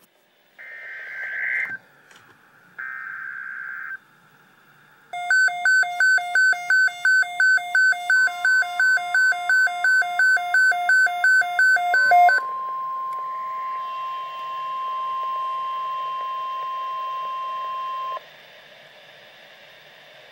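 Weather-radio emergency alert signal. Two short buzzy bursts come first, then rapid electronic beeping at about three beeps a second for some seven seconds. Then the long steady NOAA Weather Radio warning alarm tone sounds for about six seconds and cuts off sharply, leaving radio hiss.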